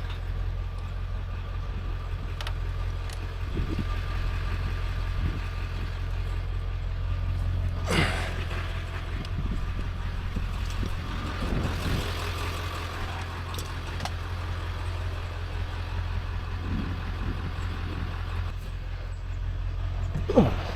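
Vehicle engine running with a steady low drone, with a few short knocks and clatters, the loudest near the end.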